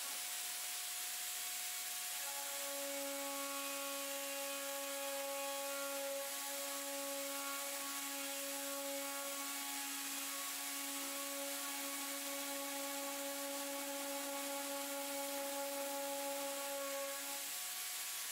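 Small rotary tool running at a steady pitch, cutting a V groove along a crack in a polypropylene headlight housing tab; it starts about two seconds in and stops near the end. A steady hiss runs underneath.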